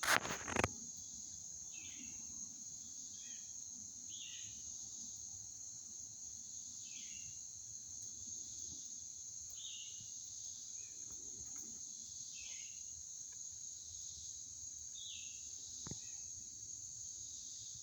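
A steady high-pitched chorus of chirping insects, with a short falling chirp repeating about every two to three seconds. A couple of loud knocks come in the first second.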